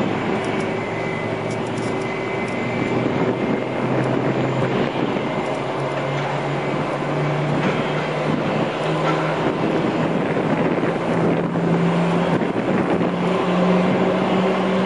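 Steady airport-ramp engine drone with a low hum that slowly rises in pitch, with wind on the microphone.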